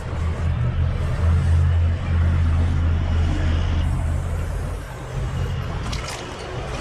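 Low, steady drone of a heavy road vehicle's engine running close by. It is strongest in the first four seconds and eases off about five seconds in.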